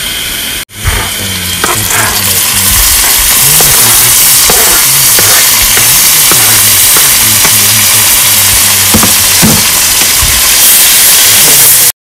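A loud, steady crackling hiss that starts after a brief cut-out about a second in.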